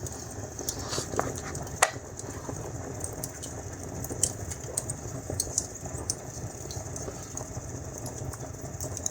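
Wood fire burning strongly in a fireplace: a steady low roar with scattered sharp crackles and pops, the loudest a little under two seconds in.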